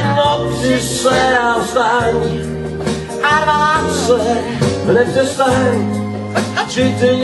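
A song playing: a wavering singing voice over steady held bass notes.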